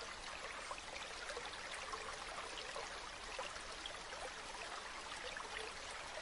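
Faint, steady trickle of running water, like a small stream.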